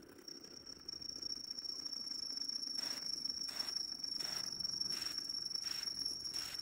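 Homemade epoxy-granite CNC mini mill face-milling a mild steel plate: a steady high-pitched whine, joined from about three seconds in by a soft pulse roughly every 0.7 seconds.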